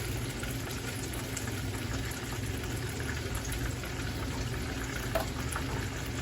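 Steady hiss of food cooking on a stovetop, with a low hum underneath and a faint tick about five seconds in.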